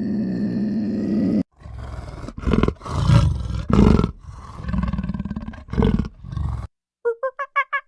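A large wild animal roaring and growling in several loud bursts, after a steady low drawn-out call that cuts off abruptly about a second and a half in. Near the end, a fast run of short, evenly repeated calls begins.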